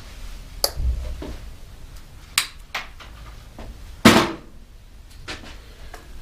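Several scattered clicks and knocks of hand tools and bike parts being handled at a workbench, the loudest a sharp knock about four seconds in.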